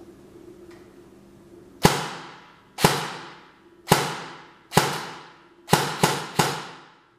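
Specna Arms SA-B03 electric airsoft rifle, silencer fitted, fired as single shots: seven sharp reports, each trailing off for about a second. The shots come about a second apart, with the last three quicker together near the end.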